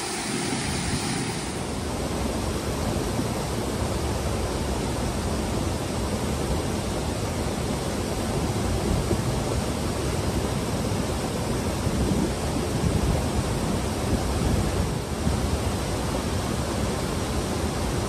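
Stream water rushing over rock ledges in small cascades and rapids, a steady, unbroken rush.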